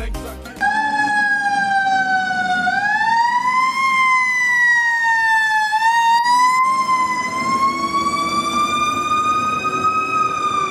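Fire truck siren wailing, its pitch rising and falling slowly over several seconds. It starts suddenly about half a second in, as music cuts off.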